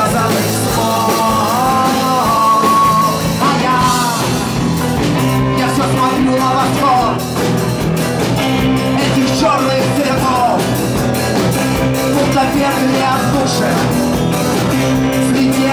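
A rock band playing a song, with a sung vocal line over the band and a steady beat.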